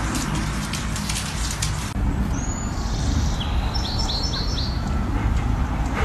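A bird chirping in short high notes, with a quick run of four or five falling chirps over a steady low rumble. A patter of sharp clicks fills the first two seconds.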